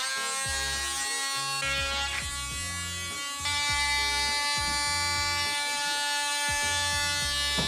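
Cordless drill running with a steady motor whine that shifts pitch a couple of times as it drives into a wooden frame. Background music plays underneath.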